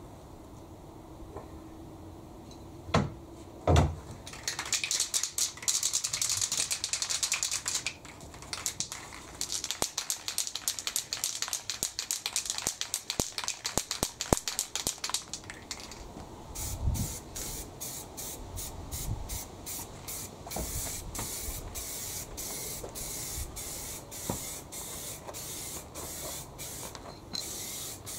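Paint being sprayed onto a quad-bike frame during its restoration: two knocks, then a steady spray for a few seconds, then many short spray bursts in quick succession, about two or three a second.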